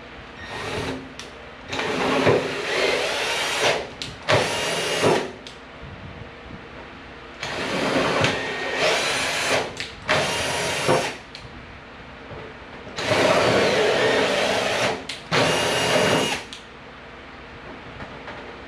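Power drill run in a series of short bursts, about seven in all, each lasting from half a second to two seconds with short pauses between, while fitting hood latch pin hardware.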